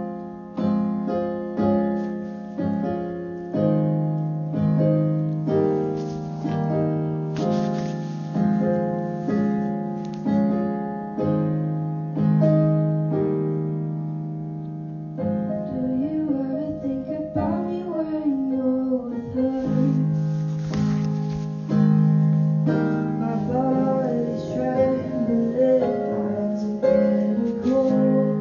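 Piano playing repeated, slowly decaying chords, about one a second. A solo voice comes in singing a melody about halfway through, over the piano.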